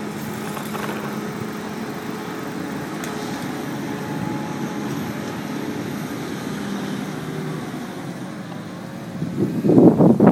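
Steady hum of street traffic and idling machinery with a low steady drone. About nine seconds in, a loud rush of wind buffets the microphone.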